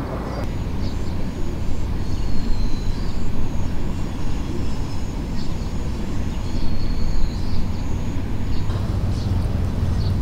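Low, uneven outdoor rumble, rising and falling in level without a clear rhythm, with a few faint high chirps over it.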